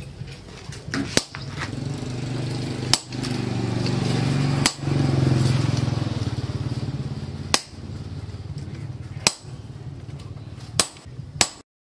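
A hand hammer strikes red-hot steel cut from a tractor disc on a steel anvil, giving about seven sharp ringing blows one to three seconds apart. A steady low machine hum runs beneath the blows and swells and fades around the middle.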